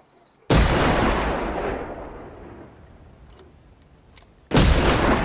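Two loud handgun shots about four seconds apart, each a sharp crack with a long echoing tail that dies away over a couple of seconds, as in a film's gunfire sound effect.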